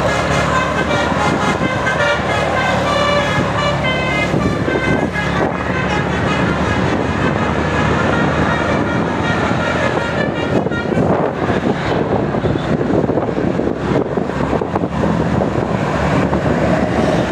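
Bus telolet horn, a multi-tone musical air horn, playing a stepping tune of changing notes over the bus's engine and road noise for the first six seconds or so. Loud rushing road and wind noise follows for the rest.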